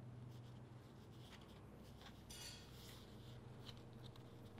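Faint rustling and scratching of yarn being drawn between the warp threads of a cardboard loom and pushed down against the weaving, with a brief louder scrape a little past halfway.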